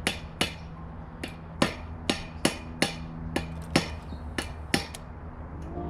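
Hammer tapping a new star nut down into a bicycle fork's steerer tube without a star nut setting tool: about a dozen sharp taps, roughly two a second, some briefly ringing, stopping about five seconds in.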